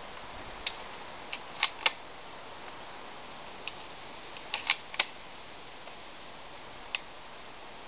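Irregular sharp clicks and snaps, about ten in all, some in quick pairs, over a steady background hiss.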